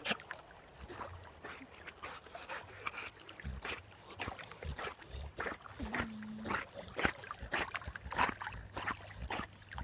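A dog swimming close by: irregular short splashes from its paddling in the water, with a brief steady whine about six seconds in.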